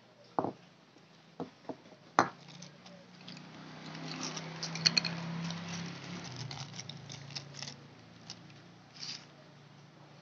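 Light clicks, taps and knocks of metal parts as a Honda Future cylinder head and its intake manifold are handled, with a faint low hum that swells midway and fades.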